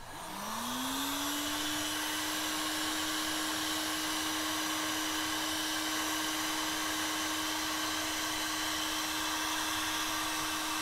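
Heat gun switched on: its fan motor spins up with a rising whine over the first second or so, then runs steadily with a constant hum and an even rush of hot air, shrinking heat-shrink tubing over the wire joints.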